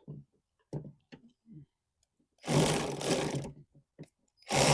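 Power tool motor running in two bursts while driving out fasteners: a run of about a second in the middle, and a second run starting near the end. A few light clicks and knocks of tools on metal come first.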